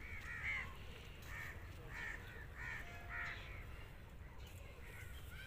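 Crows cawing repeatedly, a run of short harsh caws a second or so apart, over a steady low rumble.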